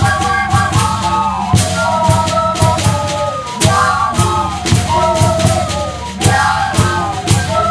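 Festive Andean dance music: a high, wavering melody over a regular drum beat.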